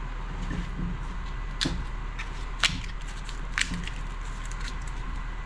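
Dry bark being pried and snapped off a walnut log by hand: three sharp cracks about a second apart, the middle one loudest, with lighter crackling between them, over a steady low hum.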